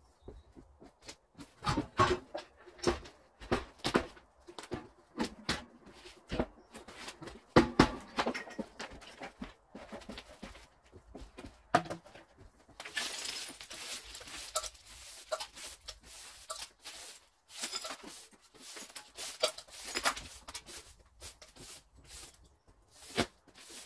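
Pigs rooting and chewing at debris: irregular knocks and crunches, with a stretch of rustling from about halfway through.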